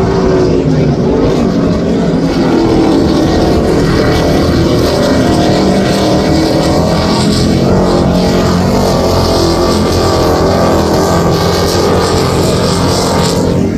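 Offshore racing powerboat's engines running at high speed as the boat passes. The engine note is steady, then wavers up and down about halfway through.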